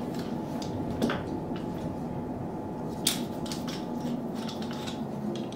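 Metal bar clamp being handled and adjusted on a wood glue-up, giving a few sharp clicks and knocks, the loudest about a second in and another about three seconds in, over a steady low hum.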